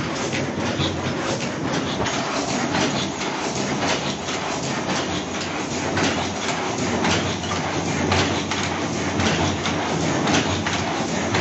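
High-speed paper cup making machine running: a steady, dense mechanical clatter of rapid repeating clicks and knocks.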